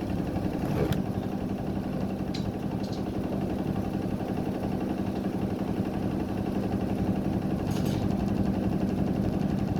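Damro DFA60 washing machine running: a steady motor hum, with a few light clicks scattered through it.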